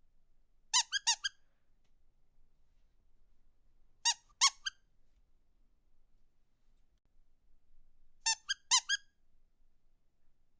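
Squeaky rubber dog toy squeezed in quick groups of two to four short, high squeaks, repeated three times about four seconds apart.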